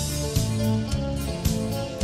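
Background music with a steady beat, about two beats a second, over a bass line and sustained notes.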